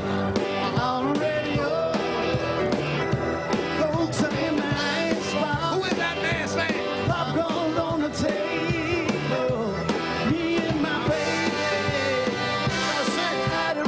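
Upbeat rock-and-roll song with a lead singer over a band of guitar, drums and other instruments.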